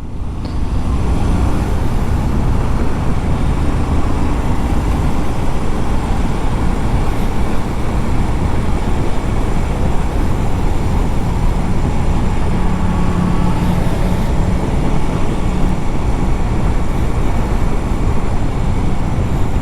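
Steady rush of road and wind noise from a moving motorcycle, with the engine running underneath.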